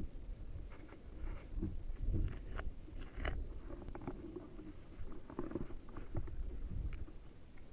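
Handling noise from an air rifle and its scope-mounted camera being swung and repositioned: scattered soft knocks, rustles and small crunching clicks, with no shot fired.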